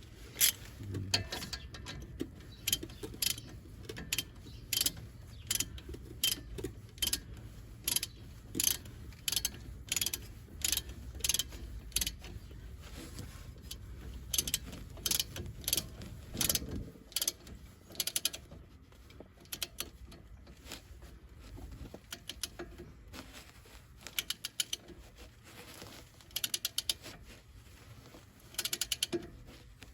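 Socket ratchet clicking as it tightens the brake caliper bolts, with a steady click about once a second at first and then quick runs of clicks in the second half.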